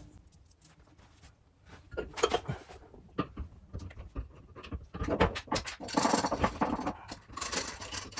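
Irregular metallic knocks, clicks and scraping from a Fortune Auto 500 coilover being worked into place in a car's rear suspension, in several bursts.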